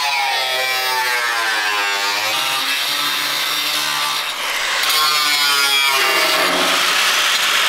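Angle grinder with a thin cut-off wheel slicing through a sheet-metal inner fender well. Its whine dips and recovers in pitch as the wheel bites into the cut, shifting about two-thirds of the way through, and stops abruptly at the end.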